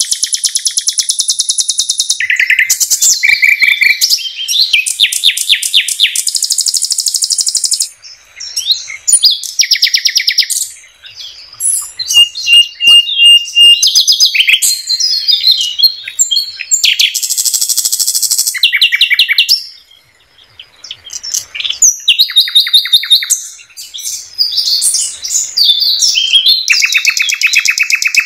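Common nightingale (sikatan londo) in full song: a run of varied loud phrases made of rapid repeated notes and trills, with short pauses between them. About halfway through comes a pure, drawn-out whistle.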